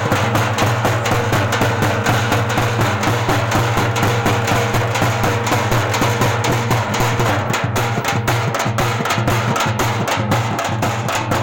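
Dappu, the stick-beaten frame drums of Telangana, played in a fast, dense, steady rhythm, with a constant low boom underneath.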